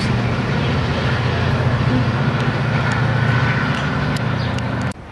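A steady, low engine drone with a rushing noise over it, cutting off abruptly near the end.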